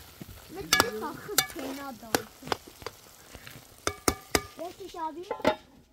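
Cooking in a pot or pan: stirring and frying, with a handful of sharp clicks of a utensil against the pot.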